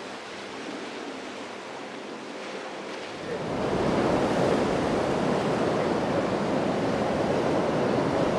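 Ocean surf washing and breaking against a rock jetty, a steady rush of water with some wind noise that turns suddenly louder a little over three seconds in.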